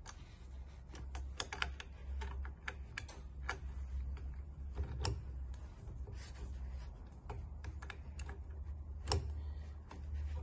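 Irregular small metal clicks and taps as bolts are fitted and turned with a hex key in a 3D printer's aluminium extrusion frame, with one louder click near the end, over a steady low hum.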